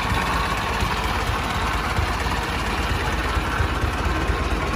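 1913 Overland Model 69's four-cylinder engine idling steadily, running well.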